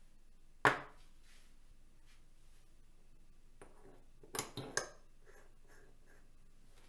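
Hard 3D-printed plastic parts handled on a wooden table. A sharp knock under a second in as the tube is set down, then a quick cluster of three or four plastic clicks and taps about four and a half seconds in as the eyepiece collar is fitted into the tube.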